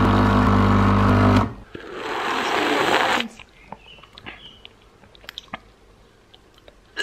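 Capsule coffee machine's pump humming steadily as it dispenses coffee, stopping suddenly about a second and a half in. A hiss follows for about a second and a half, then a few faint clicks.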